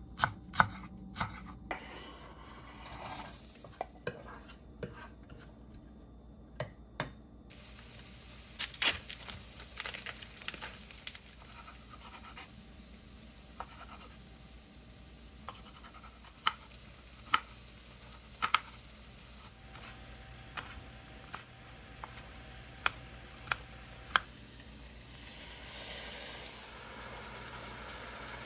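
Kitchen cooking sounds: sharp clicks and taps of utensils against cookware and dishes, spaced a second or two apart, over a faint steady hiss that comes in about a quarter of the way through.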